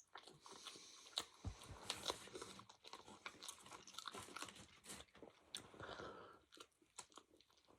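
Faint, close-up chewing of food: irregular crunches and small wet mouth clicks.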